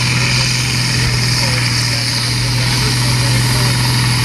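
Turbocharged diesel engine of a red International Harvester pulling tractor running hard under load as it drags a weight-transfer sled down the track, a steady low drone that holds even throughout.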